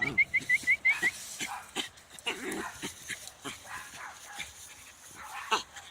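Dog vocalising: a quick run of high yips in the first second, then a short whine about two and a half seconds in, with scattered scratching and scraping between.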